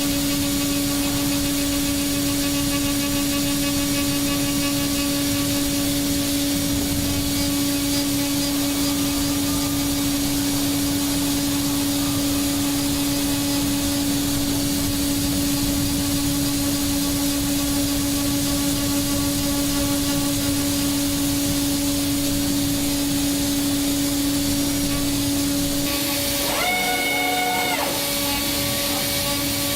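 CNC machine running while machining an engine block: a steady motor whine over a constant hiss of cutting and coolant. A higher whine briefly rises and falls about 27 seconds in.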